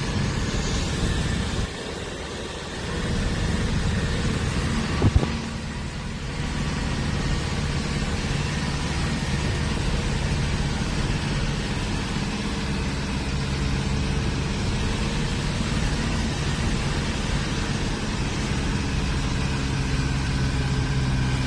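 A motor vehicle's engine running steadily with road noise, with one sharp knock about five seconds in.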